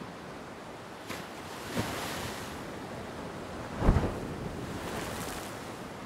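Ocean surf washing steadily on the beach, with brief thumps about one and two seconds in and a louder, low-heavy thump about four seconds in.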